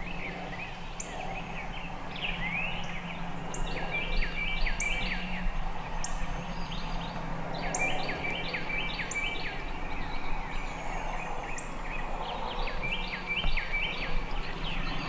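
Songbirds singing: one bird repeats a quick phrase of falling notes three times, about every four to five seconds, among scattered high chips from other birds over a steady outdoor background.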